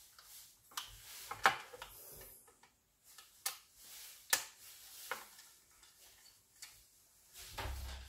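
Irregular small sharp clicks and taps of a screwdriver on the metal terminal screws and plastic body of a 3-pin plug socket as the cables are fitted and screwed down.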